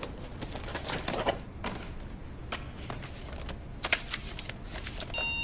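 A small cardboard gift box and the paper inside it being handled and opened: scattered light crinkles, rustles and small taps.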